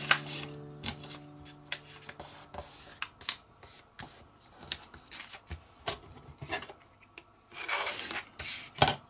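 A sheet of paper being folded and creased flat by hand on a cutting mat: scattered rustles, crinkles and light taps, with a longer sliding rub near the end and a sharp click just before it ends. Background music fades out in the first couple of seconds.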